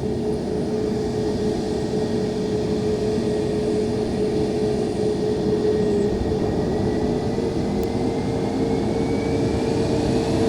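Airplane engine running steadily, with a faint high whine slowly rising in pitch toward the end.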